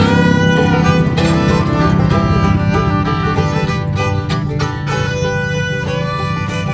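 Instrumental background music: a fiddle melody over quickly plucked strings in a bluegrass style.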